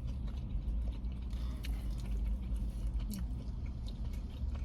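Close-miked chewing and biting of food, with scattered small clicks and crunches, over a steady low hum.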